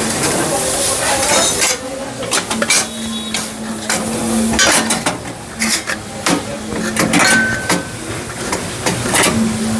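Metal clinks, clacks and knocks at irregular spacing from tools and metal battery parts being handled while a hybrid battery pack is fitted into the car. A steady hum comes and goes underneath.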